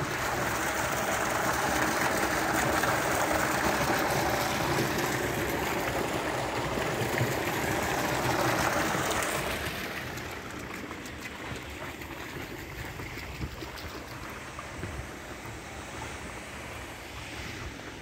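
Water pouring from a pipe outlet into a concrete storage tank, a steady splashing rush. It grows fainter about ten seconds in, leaving wind noise on the microphone.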